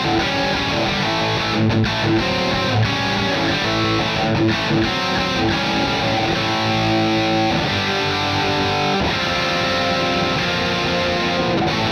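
Rock music with distorted electric guitar.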